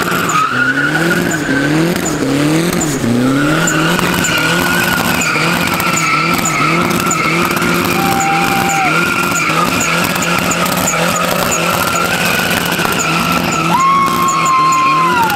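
Mazda Miata four-cylinder engine revved hard while its rear tyres screech continuously through donuts. For the first three seconds the revs rise and fall about twice a second, then they are held high and steady, with two brief higher tyre squeals, about eight seconds in and near the end.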